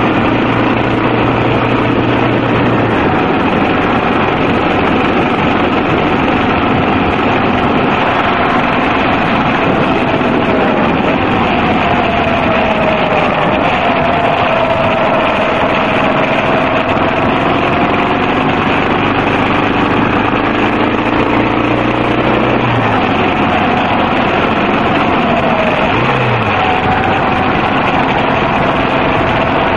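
Yamaha XT250 single-cylinder four-stroke motorcycle engine running under way, heard from on the bike under a steady rush of wind and road noise. The engine note dips and climbs again a couple of times as the throttle changes through the bends.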